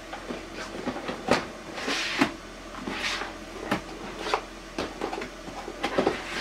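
Plastic storage drawers full of wheat bran being pulled out of a plastic drawer tower and slid back in, with a series of irregular knocks and scrapes of plastic on plastic.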